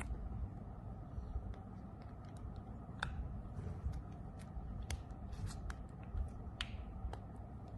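Light handling of packaging and accessories: scattered small clicks and taps over a low, steady background rumble.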